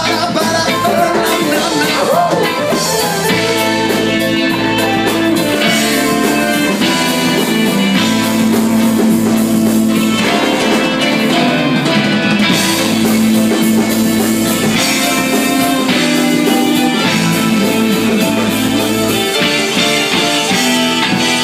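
Live reggae band playing a song with guitar, keyboards and drum kit, loud and continuous.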